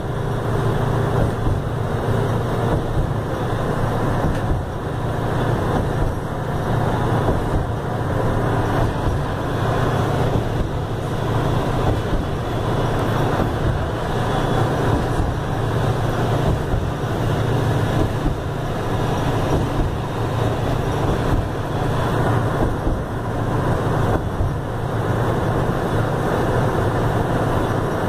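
Steady running noise inside a Mercedes-Benz OF-1519 city bus cruising at highway speed: the constant low drone of its front-mounted diesel engine, mixed with road and tyre noise.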